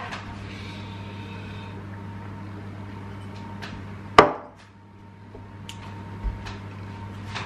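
A beer glass set down on a table with a single sharp knock about four seconds in, over a steady low hum. A few faint taps come before and after it.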